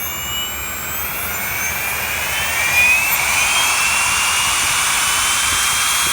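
Xnova XTS 530 brushless electric motor spinning up, its high whine rising in pitch for a few seconds and then holding steady at speed. The owner suspects a bad motor bearing, having felt a tick at low RPM.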